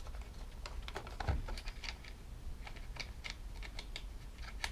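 Light, irregular clicking and tapping as two small 10 mm bolts are picked from a metal parts tray and set by hand into a lawnmower's plastic air box cover.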